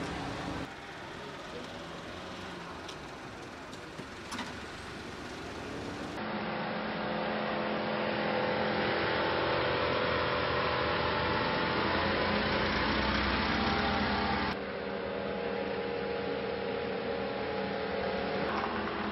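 Small engine of a Mitsubishi kei van running as the van drives, loudest through the middle as it comes close, then dropping abruptly to a lower steady engine sound.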